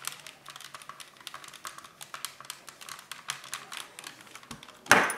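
Steam iron pressed and shifted over a folded cotton fabric square, with many small scratchy crackles of fabric and soleplate. A single loud knock near the end.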